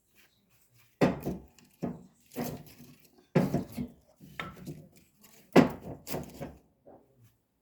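Pieces of firewood being set into a wood-burning fireplace, knocking and clunking against each other and the firebox, about seven knocks over several seconds.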